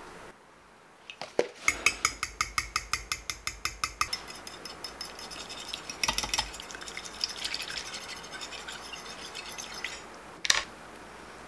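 Metal fork beating eggs and milk in a dish, clinking rapidly against the dish at about six strokes a second, then a softer, quicker clatter. One sharp clink near the end.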